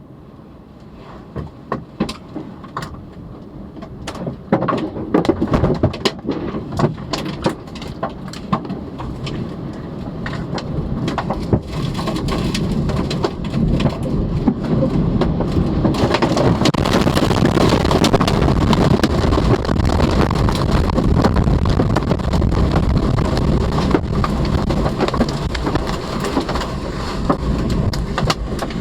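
Tornado winds building to a loud, steady roar, heard from inside a car cabin, with many sharp knocks and cracks of debris and rain striking the car's body and windows. The hits start about a second in and come thickest over the first half; from about halfway on the roar is at its loudest.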